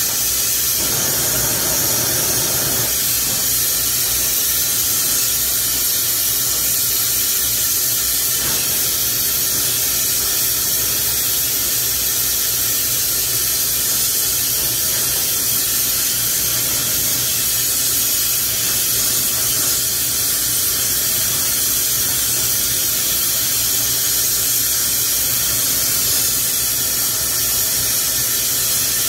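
Lampworking bench torch burning steadily, its flame giving a constant loud hiss.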